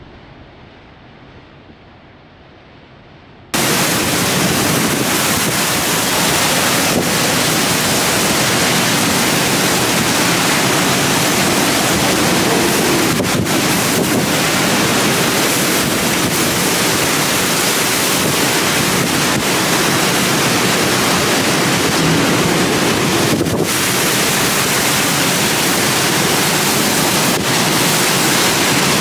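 Hurricane-force wind and driving rain: a loud, steady rush of noise with wind buffeting the microphone. It comes in abruptly about three and a half seconds in, after a few seconds of softer wind noise.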